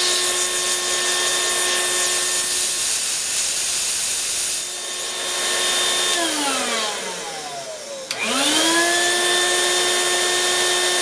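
Vacuum cleaner motor running with a steady whine; about six seconds in it is switched off and winds down, then with a click about eight seconds in it is switched back on and spins up to full speed again.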